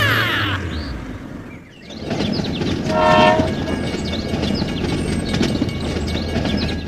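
Steady rumbling noise with a short horn blast about three seconds in, after a brief dip.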